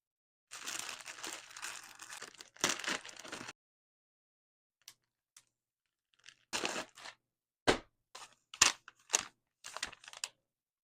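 Handling sounds from a holster and pistol: a scraping rustle for about three seconds, then a run of sharp clicks and knocks in the second half.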